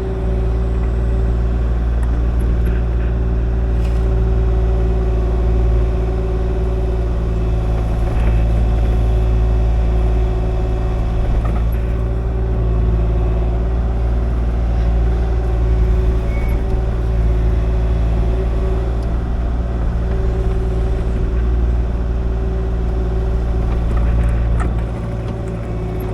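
Kubota KX040 mini excavator's diesel engine running steadily with a constant hum while it works, easing off slightly near the end.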